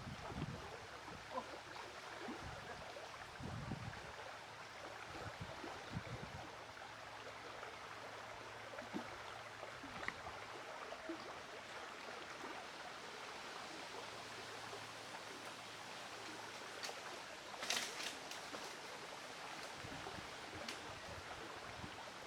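Steady, fairly faint outdoor background hiss like running water, with a few soft low thumps in the first few seconds and a brief crackling burst of clicks near the end.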